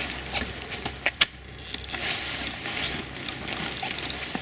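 Rustling handling noise with two sharp clicks about a second in, as the locking sleeves on the tent frame's corner hinges are released and the corners let drop.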